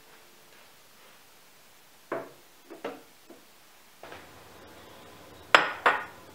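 A few knocks and clunks from household handling, with the two loudest close together near the end. A low steady hum starts partway through.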